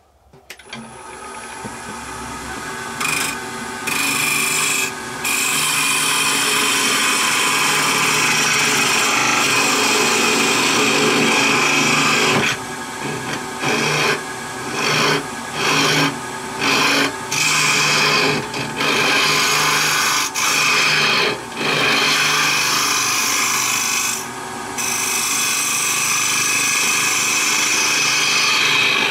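A round-nose scraper cutting into wood spinning on a lathe, a steady rasping scrape as shavings come off, over the lathe's low hum. The cutting builds up over the first few seconds, then breaks off and resumes about eight or nine times in quick succession in the middle as the tool is lifted from the wood, before running steadily again near the end.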